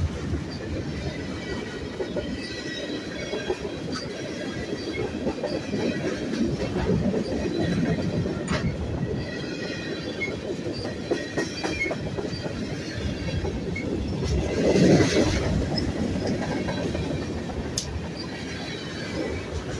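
Freight train of tank cars and covered hoppers rolling past close by: a steady rumble of steel wheels on rail, with faint high wheel squeal and an occasional sharp click. It swells louder briefly about fifteen seconds in.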